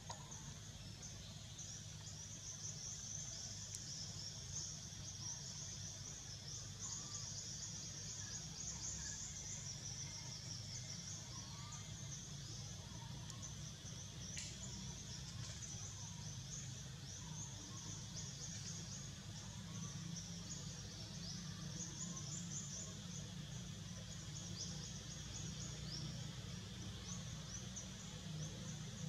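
Forest ambience: a steady, high-pitched, densely pulsing insect chorus over a low rumble, with a few faint bird chirps.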